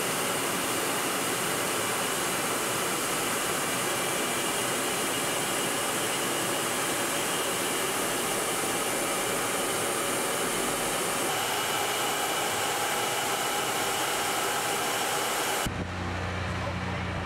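Steady, loud rushing of jet engine and airflow noise, as heard aboard an aircraft flying alongside an F-35B. Near the end it cuts abruptly to a quieter, steady low hum.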